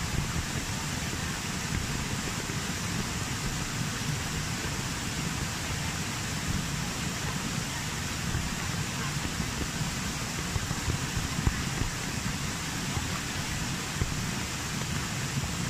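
Small rocky waterfall and falling rain making a steady rushing hiss, with a few slightly louder moments in the second half.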